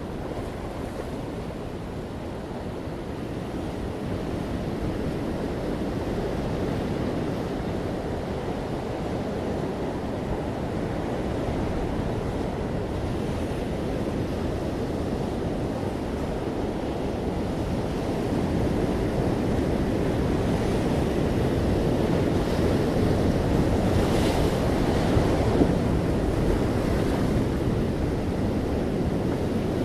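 Ocean surf: waves breaking and washing on a beach in a continuous rumbling wash that slowly builds louder, with a brighter surge of breaking water about three-quarters of the way through.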